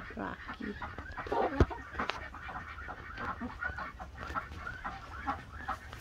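Several chickens clucking in short, irregular calls as they peck around the run, with a sharp click about one and a half seconds in and another shortly after.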